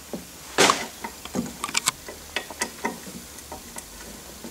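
Scattered light clicks and knocks of a screwdriver and a steel linear guide rail on an aluminium C-beam being handled on a wooden workbench, the loudest a sharp knock about half a second in.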